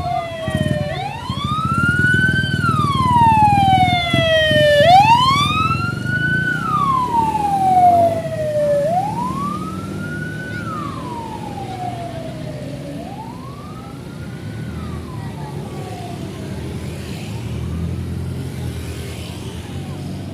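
Bus's basuri horn sounding a siren-like wail over the bus's engine rumble. The tone rises quickly and falls slowly, about once every four seconds. It is loudest in the first half and fades through the second.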